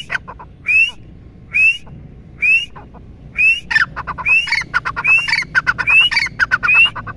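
Grey francolin (teetar) calling: loud, short rising whistled notes repeated a little under once a second. Just under four seconds in, the call quickens into a rapid run of rising notes and clipped chattering notes.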